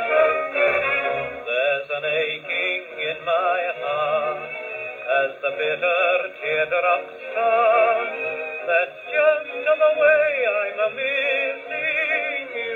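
A Decca portable wind-up gramophone playing a 1932 8-inch Eclipse 78 rpm record of a dance-band song: continuous music whose melody wavers with a vibrato.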